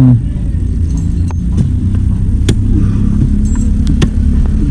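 A large engine running steadily with a low rumble, with a few sharp knocks scattered irregularly through it.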